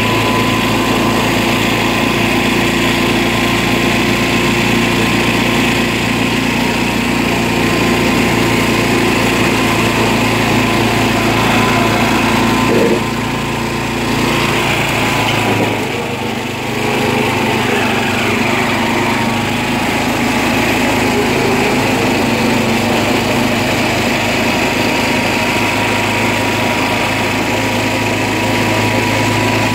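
Small single-cylinder-class engine of an old John Deere riding lawn tractor running steadily under way. About halfway through, while the tractor pulls through a muddy puddle, the note drops and wavers briefly before settling back.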